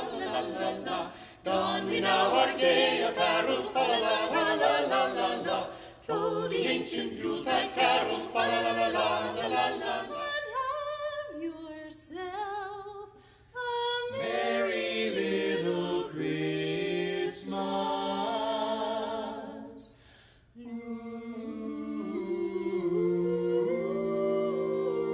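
A vocal quartet of two men and two women singing Christmas carols a cappella in harmony. The singing breaks off briefly twice in the second half and closes on long held chords.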